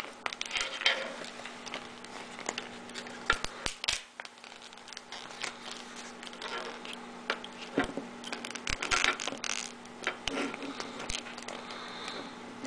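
Hands handling a clear plastic packaging tray and peeling its protective film: scattered clicks, taps and brief crinkling of plastic, over a low steady hum.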